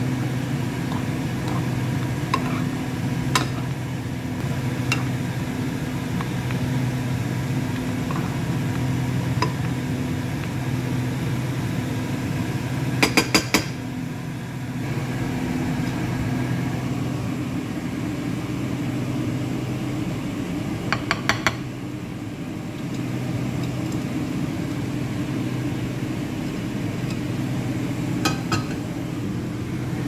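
A metal spoon stirring tagliatelle in a non-stick frying pan, with scattered single clinks against the pan and two quick runs of about four clinks. A steady low hum runs underneath, with a few more clinks near the end.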